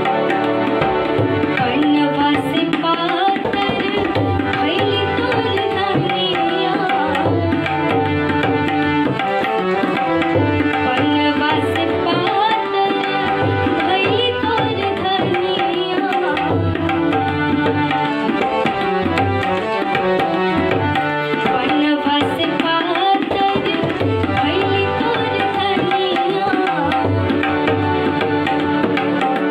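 A young girl singing a Bhojpuri folk song, her voice bending in pitch over steady held notes, with a rhythmic hand-drum accompaniment.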